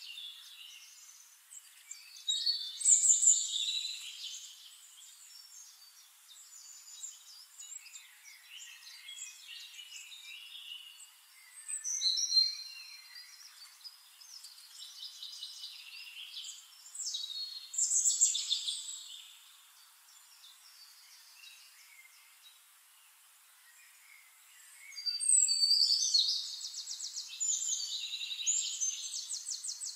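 Songbirds singing and chirping in several bouts, loudest about 3, 12 and 18 seconds in and again in a longer trilling stretch near the end.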